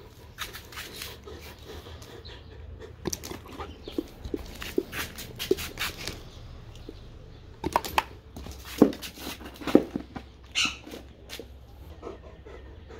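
A dog chewing and smacking on pieces of raw heart: an irregular run of short clicks and smacks, a few louder ones after the middle.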